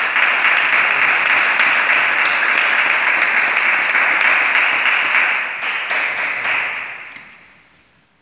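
Applause after a point, holding steady and then dying away near the end.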